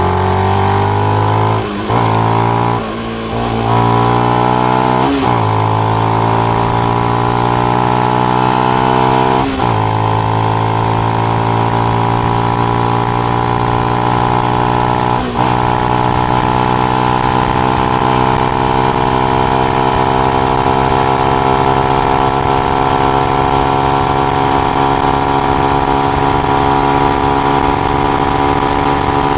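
Benelli BN125's small single-cylinder engine through its stock exhaust with the dB killer fitted, ridden and pulling through the gears. There are short breaks for gear changes about 2, 3, 5, 10 and 15 seconds in, and the revs climb slowly and steadily in between.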